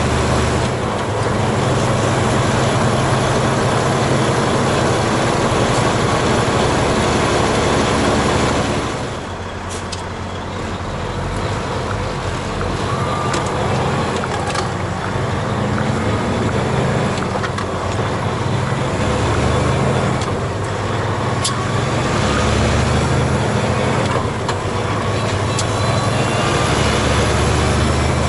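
Semi-truck diesel engine and road noise heard inside the cab. The engine drops off about nine seconds in as the truck slows, then builds again in steps with short breaks as it pulls away up through the gears.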